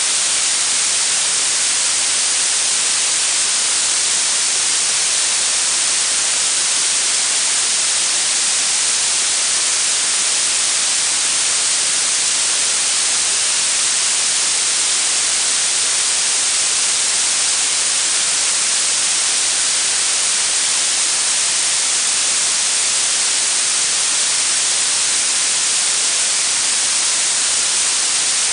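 Synthetic blue noise: a steady, unchanging hiss weighted toward the high end, with little low rumble beneath it.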